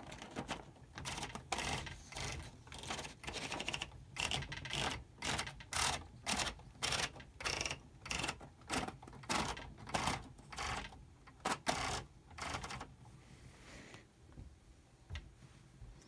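1913 Hammond Multiplex typewriter's paper roll being turned by hand to feed a sheet in: a run of sharp clicks, about two a second, that stops about three seconds before the end.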